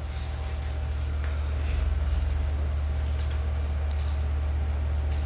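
A steady low rumble with a faint higher hum above it, swelling slightly about a second in, with a few faint light clicks.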